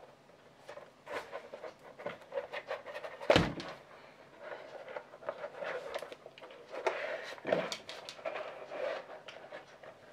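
Handling sounds from leatherworking at a bench: scattered light taps, scrapes and rustles of leather and tools, with one heavier knock about three seconds in.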